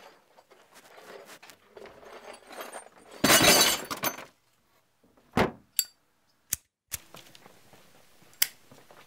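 Glass breaking: a loud crash lasting about a second, followed by a handful of short, sharp clinks spread over the next few seconds.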